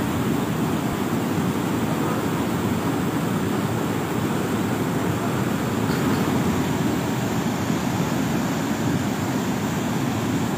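Fast floodwater rushing and churning as it pours from a canal across a road, a steady unbroken torrent with no let-up.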